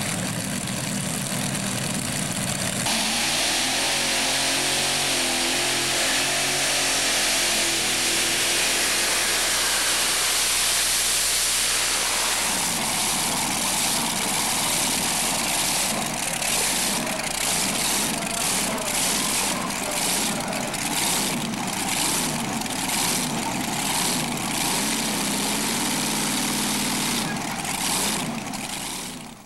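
Multi-engine modified pulling tractor running loudly after its pull. A steady pitched drone sits under dense engine noise for the first dozen seconds, then the running turns rougher and pulses about twice a second.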